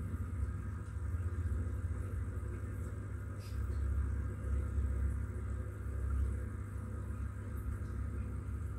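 Steady low hum and rumble of aquarium equipment running, with no clear changes.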